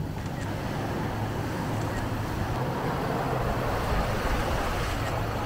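Surf washing and breaking on the shore with wind on the microphone, under a steady low hum.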